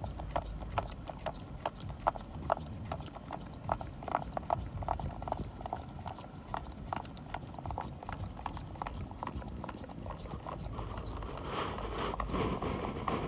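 Boxer puppy lapping whipped cream out of a small paper cup: a steady run of wet tongue clicks, about three a second.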